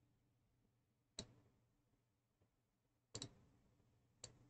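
Computer mouse clicks over near silence: a single faint click about a second in, a quick double click just after three seconds, and one more click near the end.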